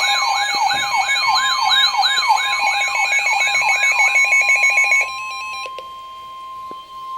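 NOAA Weather Radio emergency alert: a loud electronic siren-like alert sweeping down in pitch about three times a second, over the steady 1050 Hz warning alarm tone that signals a warning is about to be read. The sweeping alert cuts off about five seconds in, leaving the steady tone alone.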